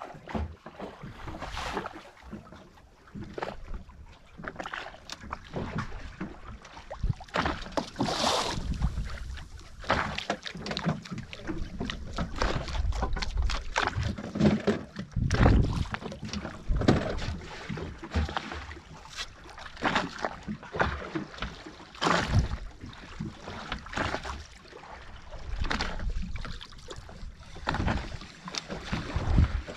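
Sea water slapping and splashing against the hull of a small outrigger fishing boat, in irregular surges with low thumps.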